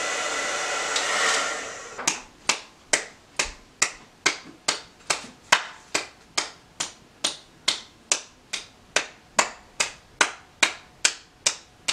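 A hair dryer blows steadily and dies away about two seconds in. It is followed by a steady run of sharp finger snaps, about two and a half a second.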